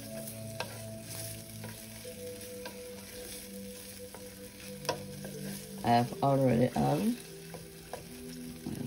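Wooden spoon stirring and scraping minced ginger and garlic in hot oil in a nonstick frying pan, with a light sizzle and small taps of the spoon on the pan. A brief bit of voice comes in about six seconds in.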